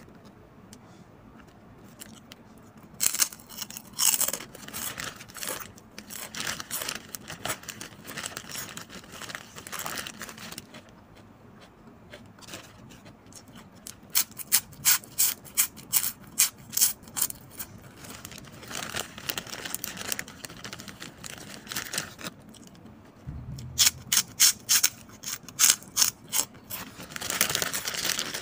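Crisp chicharon baboy (fried pork rinds) being bitten and chewed close to the microphone: sharp crunches in quick runs, the loudest about halfway through and again past three-quarters of the way. A plastic bag crinkles in between.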